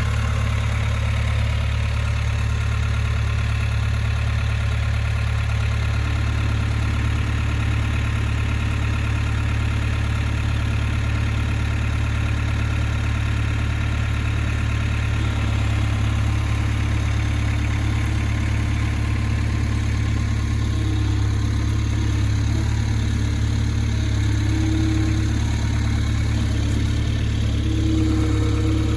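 Skid steer engine running steadily, its tone shifting slightly about six seconds in.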